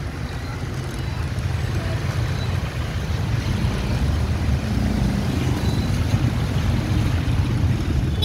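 Motorbike ride through busy street traffic, with a steady low wind rumble on the microphone and engine and traffic noise, growing a little louder a few seconds in.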